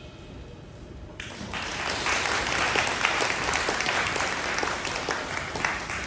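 Audience applauding, breaking out about a second in and quickly building.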